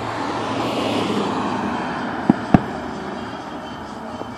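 A vehicle passing on the road, its noise swelling and fading, with two sharp firework bangs in quick succession about two and a half seconds in.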